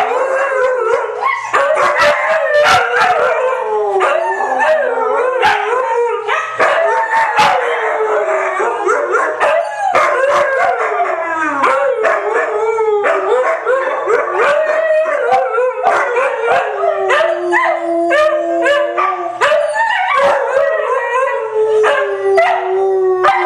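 Three white huskies howling together in a chorus: several long howls overlap and glide up and down in pitch, broken all along by many short, sharp cries.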